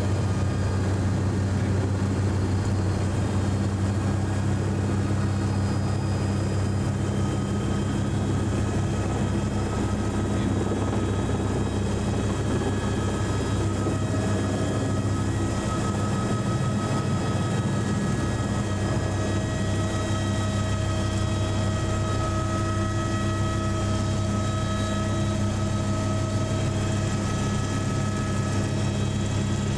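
Eurocopter AS350's Turbomeca Arriel turbine and rotor heard from inside the cabin: a steady drone with a low hum and a high whine, with another whine joining about halfway through.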